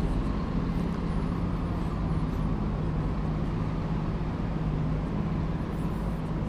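City street ambience: a steady low hum of traffic and engines with a constant drone underneath.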